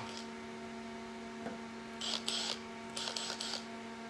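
A screwdriver working at a screw on a spot welder's case, giving two short bursts of scratchy clicking about two and three seconds in, over a steady low hum.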